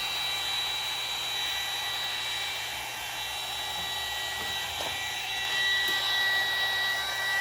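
Heat gun blowing steadily with a thin high whine, getting a little louder about two thirds of the way through.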